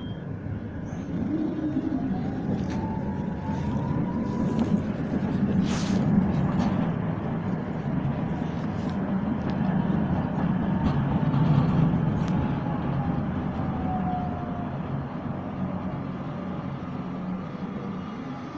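Tram running between stops, heard from inside the car: a steady rumble of the wheels on the rails, with the traction motor's whine rising in pitch over the first few seconds as it picks up speed and falling again in the second half as it slows. A sharp knock comes about six seconds in.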